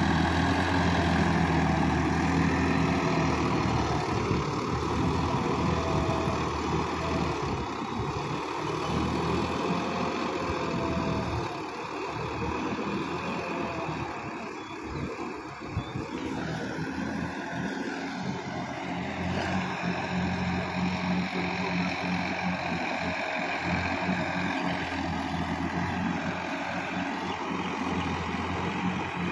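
Sonalika DI-50 RX tractor's diesel engine running steadily under load as it ploughs a flooded, muddy paddy field. The hum drops off a little about halfway through, then comes back up.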